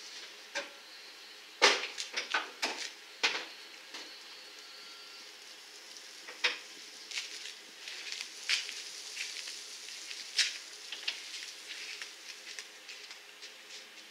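Scattered sharp clicks and knocks from a ratchet strap being handled and run over two paddle boards in a pickup truck bed, its hook and buckle knocking against the truck and boards. The loudest come in a quick cluster about two to three seconds in, with single knocks later.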